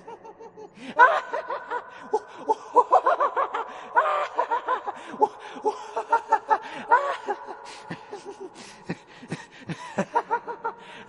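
Creepy, evil-sounding laugh sound effect: a long string of rapid, cackling laugh pulses starting about a second in, over a faint steady tone.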